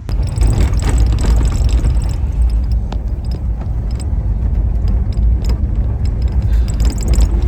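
A 4x4 vehicle driving over a rough unpaved road: a loud, steady low rumble with frequent rattles and knocks from the bumps.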